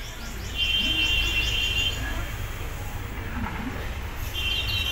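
A bird singing: a rapid, high trill lasting over a second, about half a second in, then again near the end, with a run of short, higher chirps at the start. A steady low rumble lies underneath.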